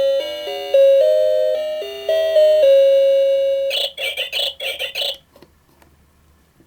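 Electronic alarm melody from a Noa Seimitsu 'Fruity' alarm clock, a simple tune in plain beeping notes. About four seconds in it switches to a quick run of harsher pulses for about a second and a half, then stops.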